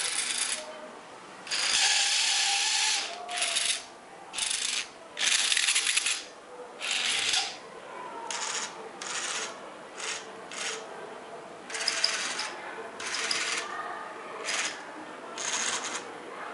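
Electric motors and gearing of a wired Eitech metal construction-kit tracked vehicle whirring in short runs, starting and stopping about a dozen times, each run lasting from a fraction of a second to about a second and a half.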